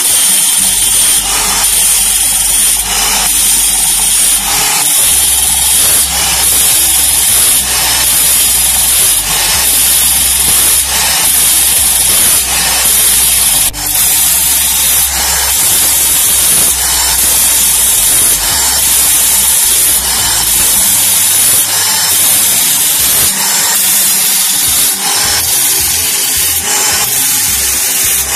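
Angle grinder in a homemade saw-sharpening machine running and grinding the teeth of a long saw band. The high grinding sound swells and fades in a regular cycle, about once every second and a quarter, as the blade is stepped on and each tooth is ground in turn, over a low motor hum.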